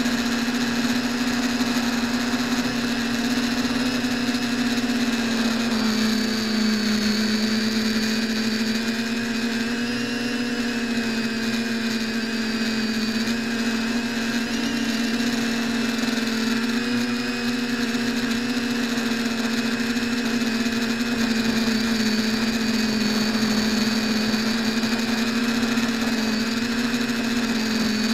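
TBS Discovery clone quadcopter's brushless motors and propellers whining steadily in flight, the pitch wavering slightly now and then as the throttle shifts, picked up by a keychain camera on the frame.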